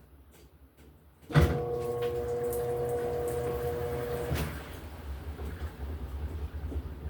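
LG top-loading washing machine: a little over a second in, a clunk as its motor kicks in with a steady hum. The hum drops away after about three seconds, leaving a steady low rumble from the running machine.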